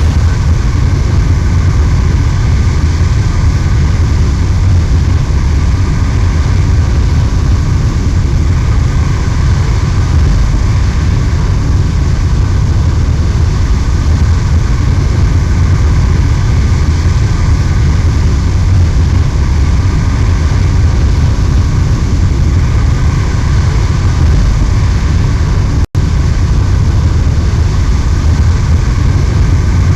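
Loud, steady jet aircraft engine noise with no rise or fall in pitch, cutting out for an instant about 26 seconds in.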